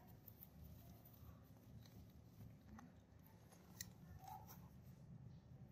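Near silence, with faint rustling and light scattered clicks from a baby monkey and its cloth pajamas being handled, and a couple of brief faint squeaks.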